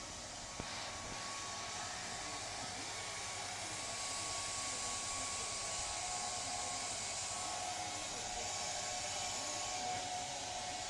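Hair dryer running steadily: an even rushing hiss with a faint steady whine, getting a little louder about four seconds in.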